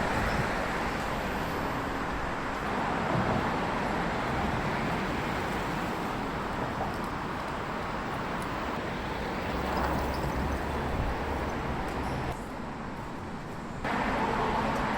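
City street traffic noise: a steady wash of passing vehicles, with a deeper rumble about ten seconds in and a brief dip in level a little after.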